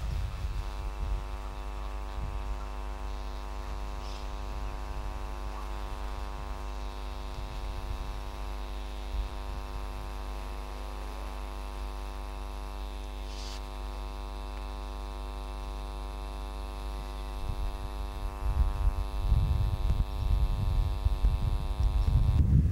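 Steady electrical hum with a long ladder of even overtones, unchanging as the camera moves, cutting off abruptly near the end. Low gusts of wind on the microphone build up over the last few seconds.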